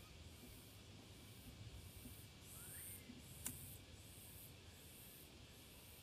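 Near silence: faint outdoor ambience with a high hiss that pulses on and off, and a single short click about three and a half seconds in.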